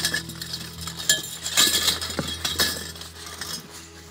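Metal poles, grate and hooks of a campfire cooking tripod clinking against each other as they are tipped out of their bag onto a wooden board: several sharp clinks over the first three seconds, then quieter.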